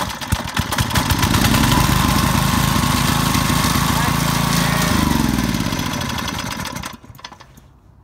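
MTD 5 horsepower small single-cylinder engine, choked and at full throttle, firing unevenly for about a second, then running fast and steady. About five seconds in it is shut off by the newly wired kill switch, and its note falls as it coasts to a stop within about two seconds.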